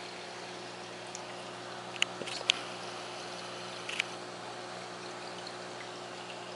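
Reef aquarium filtration running: hang-on-back filters trickling water into the tank over a steady pump hum. A few sharp clicks about two and four seconds in.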